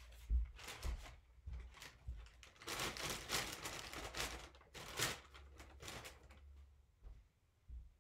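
Brown paper McDonald's takeaway bags rustling and crinkling as they are handled and set down on a table, for about two and a half seconds in the middle, after a few soft low thumps.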